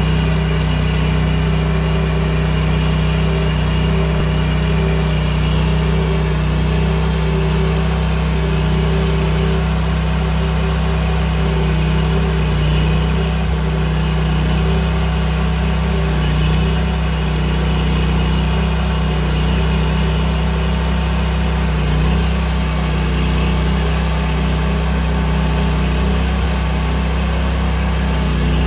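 Portable bandsaw sawmill's engine running steadily at a constant speed, with an even hum that does not change.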